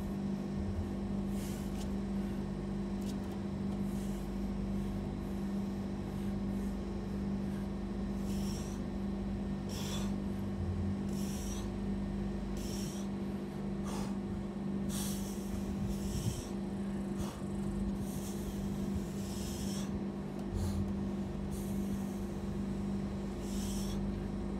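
A man breathing hard through a set of pull-ups: sharp, hissy exhalations roughly every second or so, starting several seconds in, over a steady low hum.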